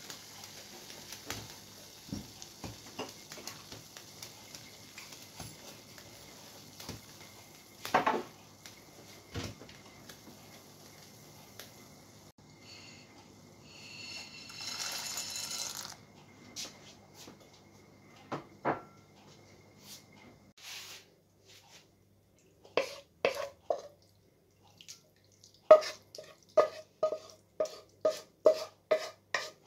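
A pot of water at a rolling boil hissing on the hob, with the clink of its glass lid being lifted. About halfway through, a brief rush as dry gnocchetti sardi pasta is poured into the water. Near the end, a wooden spoon scraping sauced pasta out of a pot and knocking against it and the plate, about two or three sharp knocks a second.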